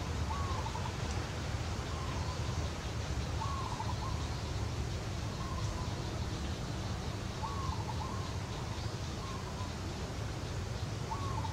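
A bird calling over and over, a short rising note that breaks into a quick trill, every two to four seconds, over a steady low rumble.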